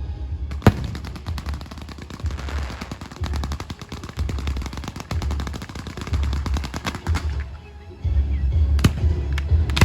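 Fireworks going off: a sharp bang about half a second in, then a dense run of rapid crackling pops for several seconds. It eases off briefly near the end before more single bangs.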